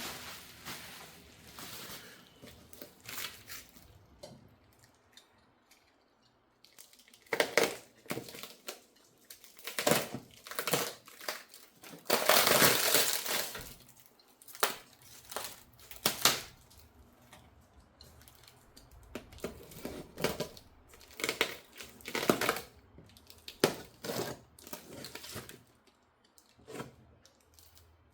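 Cart packaging being unpacked by hand: irregular rustling, crinkling and tearing of plastic wrap and cardboard, in short bursts with pauses, and a longer, louder stretch of tearing about twelve seconds in.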